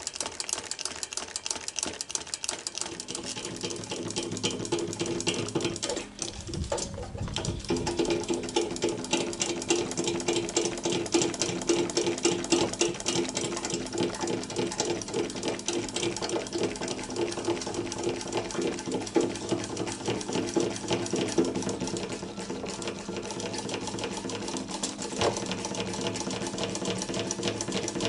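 Small motorised fuel transfer pump running steadily with a fast, even buzz, pumping the gasoline out of a portable generator's tank into a bottle. It falters briefly about six seconds in.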